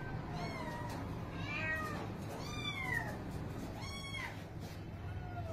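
Cat meowing repeatedly: about five drawn-out meows, each rising and falling in pitch, roughly a second apart.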